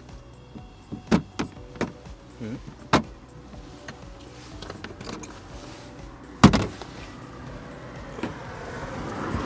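A few light knocks and clicks of things being handled in the trunk of a 2018 Acura TLX. About six and a half seconds in comes one heavy slam, the trunk lid being shut.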